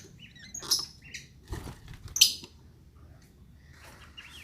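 Lovebirds chirping in an aviary: a few short, sharp, high chirps at irregular intervals, the loudest about two seconds in.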